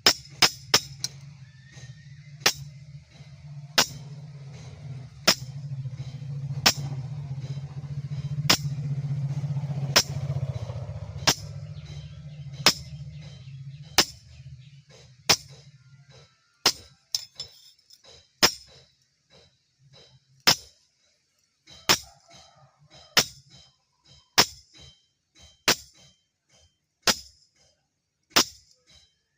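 Hammer blows on metal at the anvil, one sharp ringing strike roughly every second and a half, turning more irregular with lighter taps later on. A low steady hum sits under the strikes and stops about halfway through.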